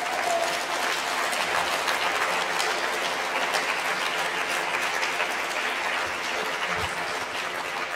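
Audience applauding: a steady round of clapping that eases off near the end.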